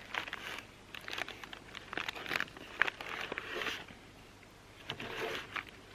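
Irregular clicks, scrapes and rustles from someone handling food and cooking gear at a campfire, coming in short clusters.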